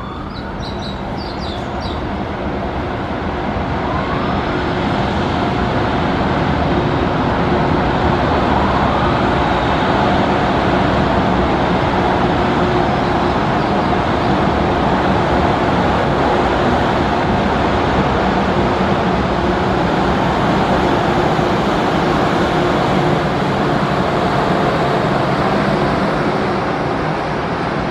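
EH200 electric locomotive running slowly through a station with a 413 series EMU in tow: a steady rumble of wheels and motors with a low hum, building over the first few seconds as it comes near and then holding.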